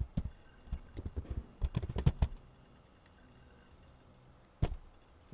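Computer keyboard keystrokes: quick clusters of typing over the first two seconds or so, then a pause and a single keystroke near the end.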